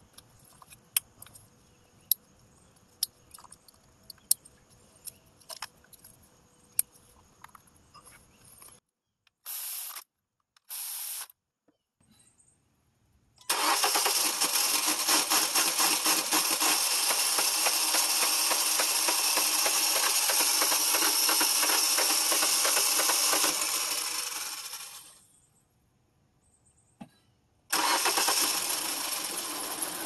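Small clicks and taps of hand work on the engine for the first several seconds. Then the 2013 Hyundai Elantra's 1.8-litre four-cylinder engine is started and runs loudly for about ten seconds, stumbling while fuel pressure builds after the injectors were swapped; it drops away and is heard running again near the end, rough, with the suspect cylinder-1 fuel injector now in cylinder 4.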